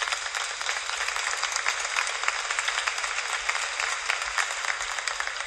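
Audience applauding, a dense, steady clapping of many hands after a cabaret number.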